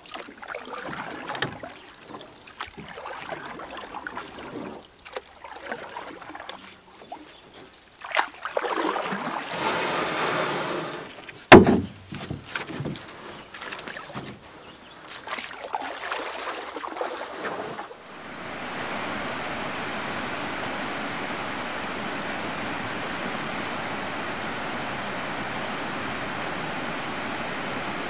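Water splashing and sloshing around a kayak on a river, with sharp knocks and one loud thump about halfway through. For the last third a steady, even rush of noise takes over.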